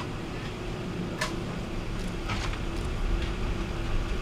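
Ambulance engine idling steadily, with two sharp metallic clanks, about a second in and a second later, as the stretcher is unloaded from the back.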